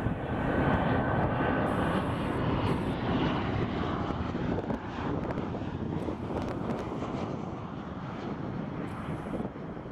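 Delta Boeing 737-800 jet on final approach passing close overhead, its CFM56 turbofan engines running at approach power. A steady whine sits over the engine noise for the first second or so; the sound is loudest in the first few seconds and eases off slowly as the plane moves away toward the runway.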